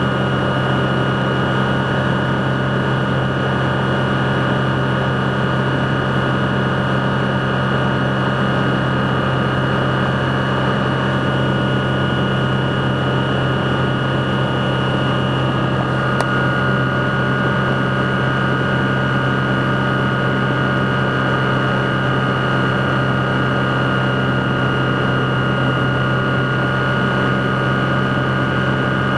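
The Rotax 912 flat-four engine and propeller of a BushCaddy R-80 ultralight floatplane droning steadily in cruise flight, heard inside the cockpit, with several steady tones over the noise of the engine and the wind.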